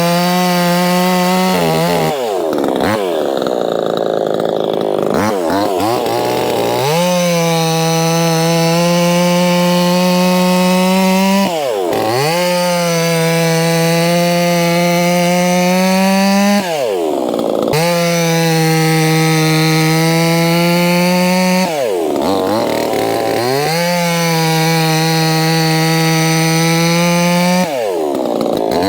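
Proyama 68cc two-stroke chainsaw running at high revs while cutting wood. Its engine note dips sharply and climbs back about every five seconds.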